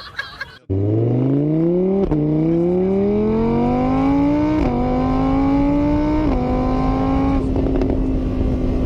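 A car engine accelerating hard through the gears, starting abruptly under a second in. Its pitch climbs and drops back at each of three upshifts, then holds nearly steady.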